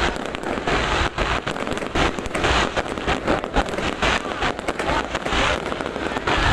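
Fireworks display going off in a dense, continuous run of bangs and crackles, one burst hard on another.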